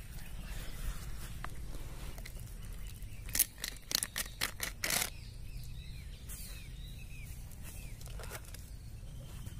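Outdoor ambience of birds chirping faintly over a low steady hum, broken in the middle by a quick run of sharp clicks and knocks.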